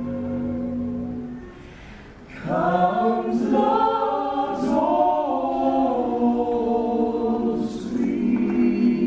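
Eight-voice a cappella vocal ensemble singing in close harmony. A held chord fades away, and after a short gap the voices come back in together about two and a half seconds in, moving through a new phrase and settling onto another held chord near the end.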